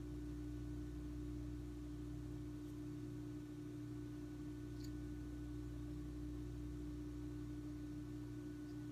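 A steady hum with one clear, unchanging tone and a weaker low drone beneath it, with a couple of very faint ticks in the first half.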